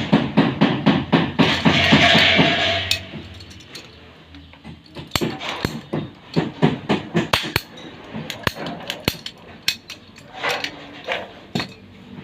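Irregular sharp knocks and clinks of hand work with tools and plastic pipe fittings, after a few quick rhythmic strokes and a brief hiss about two seconds in.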